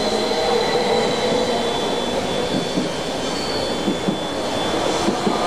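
SBB Stadler FLIRT electric multiple unit rolling past close by: a steady rumble of wheels on rail with a motor whine. In the second half come several paired knocks from the wheels.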